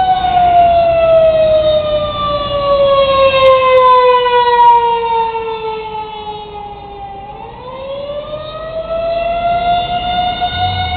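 Prison outdoor warning siren sounding during its monthly test: one long wailing tone that starts high, falls slowly over about seven seconds, then climbs back to the high pitch near the end.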